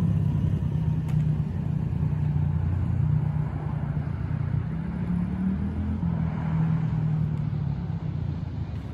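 Mini dirt bike engine running as it is ridden around, its note shifting up and down a few times with the throttle.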